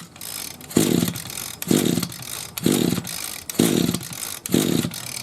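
A string trimmer's engine being pull-started: six quick pulls of the recoil starter cord, about one a second, each cranking the engine briefly without it catching and running.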